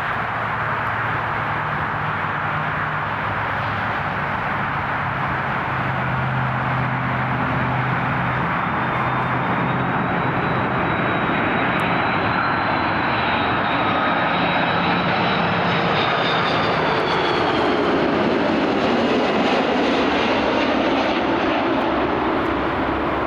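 Jet airliner's engines passing close by: a steady rushing roar that grows a little louder, with a faint high whine that dips in pitch as the aircraft goes past, about three-quarters of the way through.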